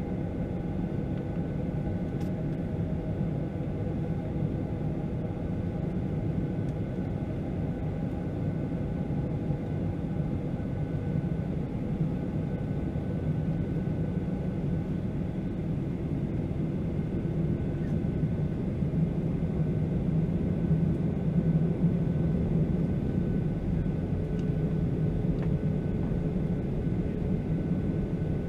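Boeing 737-800's CFM56-7B turbofan engines at low taxi power, heard inside the cabin over the wing: a steady rumble with a few faint steady engine tones, growing a little louder about two-thirds of the way in as the jet taxis.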